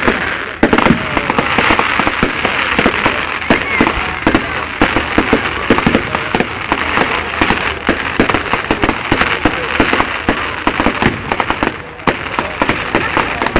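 Aerial fireworks going off in a rapid, continuous barrage: many sharp bangs a second over a steady crackle of bursting stars, easing off briefly near the end.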